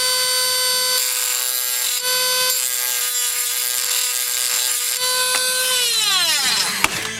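Dremel rotary tool running at a steady high speed, then switched off about six seconds in, its whine falling in pitch as it spins down.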